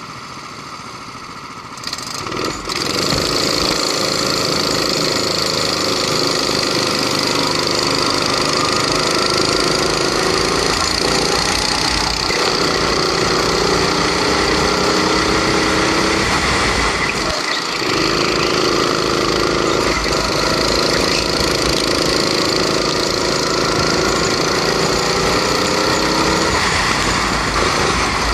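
Onboard sound of a rental kart's Honda 270cc single-cylinder four-stroke engine under racing throttle. Its pitch rises on the straights and dips briefly several times as the driver lifts for corners. The sound gets much louder about two seconds in.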